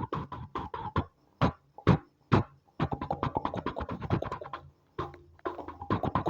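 Background music in a beatbox style: fast, clipped percussive beats over a steady tone. It breaks off a second in for a few single hits, then the beat picks up again.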